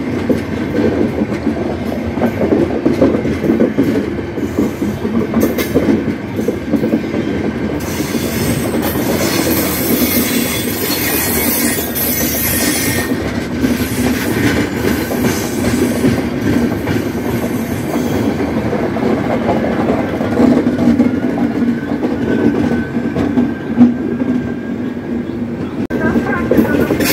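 Indian Railways express passenger coaches rolling past close by, a steady rumble with wheels clattering over the rail joints. For several seconds in the middle a high hiss or squeal rises over the rumble.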